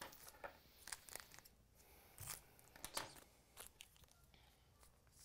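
Faint, scattered flicks and rustles of cardboard hockey trading cards being sorted through by hand and tossed onto a pile, with a few sharper clicks.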